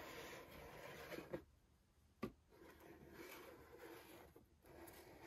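Faint rubbing and sliding of a cardboard toy box being handled and turned over. Two short taps come a little over a second in and just after two seconds in.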